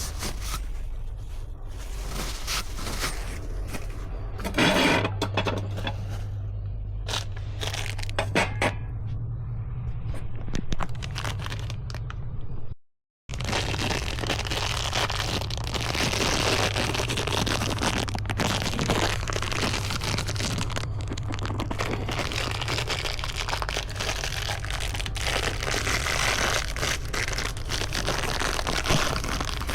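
Scraping and rubbing with scattered clicks over a low steady hum. The sound cuts out completely for a moment about 13 seconds in.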